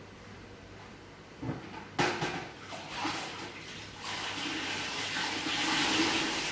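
A plastic bucket knocks down on a tiled floor about two seconds in, then water splashes and sloshes in the bucket as a mop is worked in it, growing louder and stopping near the end.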